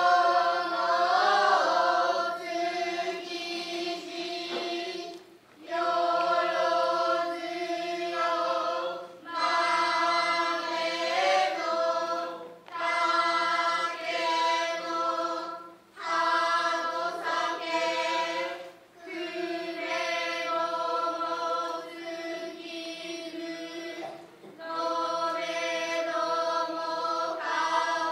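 Children's chorus chanting noh utai in unison as a jiutai accompanying a dance, with long held phrases broken by brief pauses for breath every few seconds.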